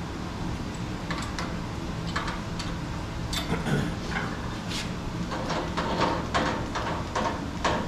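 Metallic clicks and knocks from hand-adjusting the stop on a vertical boring machine's head, scattered at first and coming more often in the second half, over a steady low hum.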